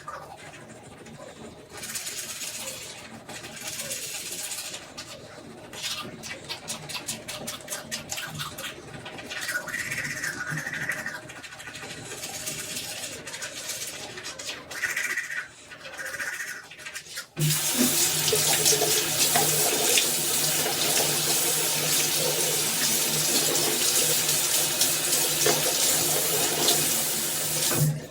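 Assorted small clicks and handling knocks, then a tap turned on about two-thirds of the way through: water runs steadily into a sink until it is shut off near the end.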